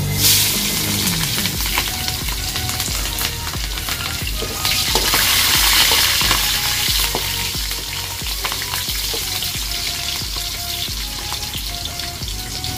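Green chillies sizzling in hot oil in a pan, the hiss flaring as they go in and swelling again about five seconds in, while they are stirred with light clicks of the utensil against the pan.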